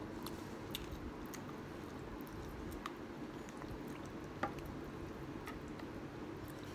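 Wet chewing of kimchi ramen, then the soft squish and small clicks of chopsticks and a metal spoon working noodles in a plastic bowl, with one sharper click about four and a half seconds in. A steady low hum runs underneath.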